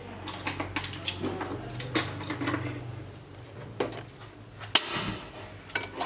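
Scattered light clinks and knocks of a utensil and an aluminium saucepan being handled on a gas stove, with one sharper clack about three-quarters of the way through.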